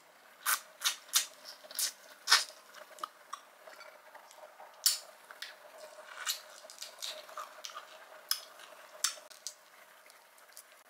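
Close-miked eating sounds of boiled shrimp being bitten, sucked and peeled by hand: irregular sharp clicks, crackles and wet mouth smacks, thinning out near the end.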